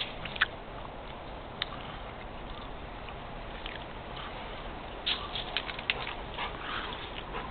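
A tan dog trotting across gravel toward the camera, its paws making a quick run of light crunching clicks about five seconds in, over a faint steady outdoor hiss.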